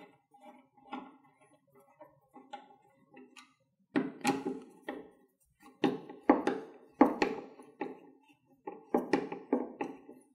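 Phillips screwdriver turning the screws in the metal clamp collar of an ice cane tip: a run of small metallic clicks and knocks, faint at first and louder in clusters from about four seconds in, as the screws are tightened down.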